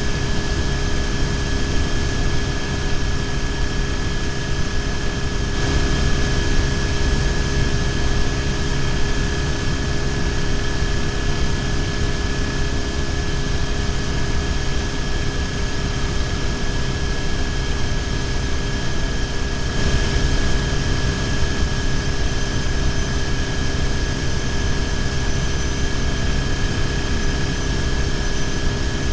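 BMW R1150GS boxer-twin engine running at a steady cruising speed, under heavy wind and road noise on a bike-mounted camera, with a steady high whine throughout.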